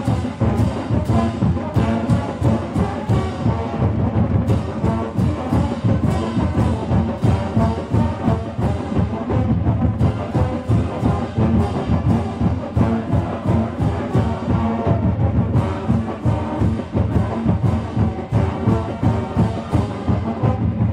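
Marching band playing, brass instruments over a steady, regular drum beat.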